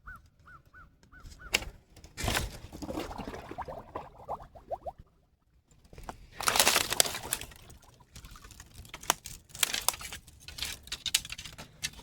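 Dry twigs and brush crackling and snapping underfoot while walking through woodland undergrowth, with a loud burst of rustling about six seconds in. A quick run of about six short chirps is heard at the start.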